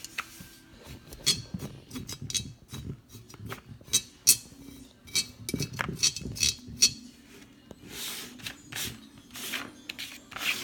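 Small irregular clicks and clinks of a paintbrush tapping and dabbing against a terracotta Chia Pet and its paper plate, with a few softer rubbing strokes near the end. A faint steady hum runs underneath.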